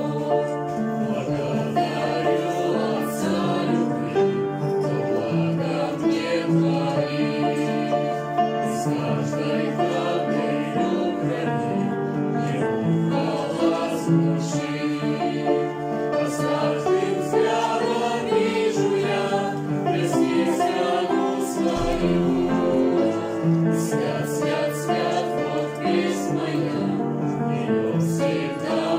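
Mixed choir of women's and men's voices singing a Russian Christian hymn, with piano accompaniment, in a steady, continuous flow of sung notes.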